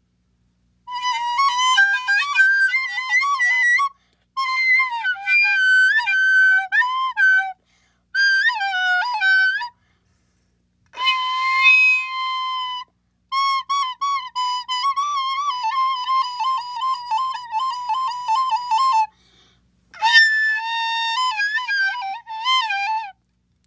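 A recorder played loudly in six short phrases with brief gaps between them. The notes wobble and bend in pitch within one high register, with one long held note about halfway through. A couple of the phrases start with a breathy squeak.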